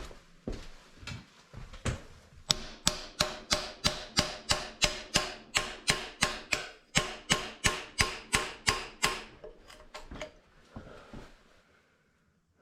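A steady run of sharp hammer blows on metal, about three to four a second with a metallic ring after each, after a few scattered knocks; it tapers to a few lighter taps and stops.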